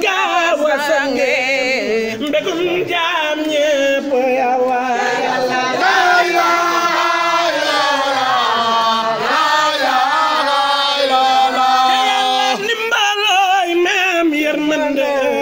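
A group of men chanting together in song, one voice very close to the microphone, with long wavering held notes and no break.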